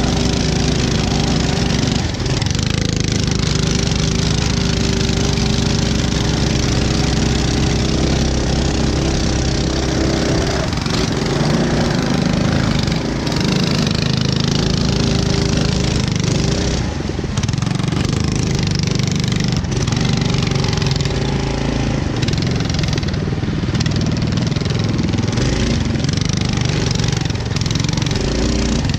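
Mega Moto 212 mini bikes' 212cc single-cylinder four-stroke engines running steadily under way, the engine note wavering a little with the throttle.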